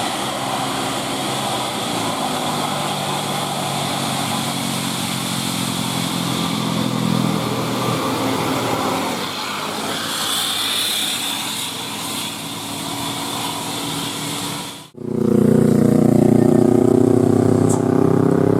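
Road traffic: the running noise of large vehicles passing on the road. About fifteen seconds in it cuts off abruptly and gives way to a louder, steady, pitched drone from a vehicle close by.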